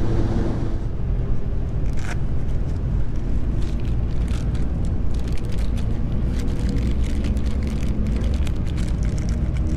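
Yamaha Fazer 600's inline-four engine running steadily under way, with wind noise rushing over the helmet camera's microphone.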